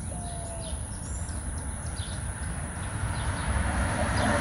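Yard ambience: wind buffeting the microphone, growing stronger near the end, with birds chirping in short calls and a steady thin high whine in the background.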